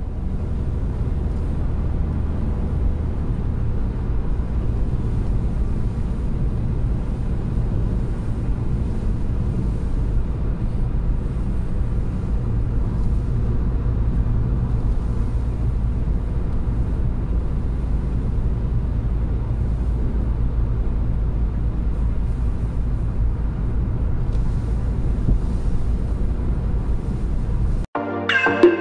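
Car road noise heard from inside the cabin: a steady low rumble of engine and tyres while driving along a country road. It is cut off near the end by the start of music.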